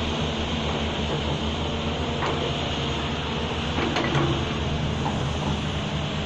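Large diesel hydraulic excavators running steadily under working load, with a couple of short knocks about two and four seconds in.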